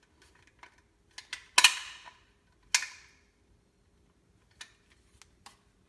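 Scattered sharp clicks and knocks from handling tools and a new stainless steel sink while silicone is applied to its edges. Two louder knocks, about one and a half and three seconds in, each ring briefly.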